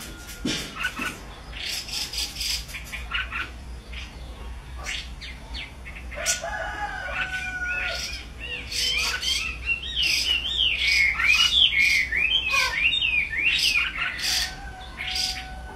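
Caged Chinese hwamei singing a varied song of sharp, clipped notes and held whistles, building to a loud, fast run of rising and falling notes about ten seconds in.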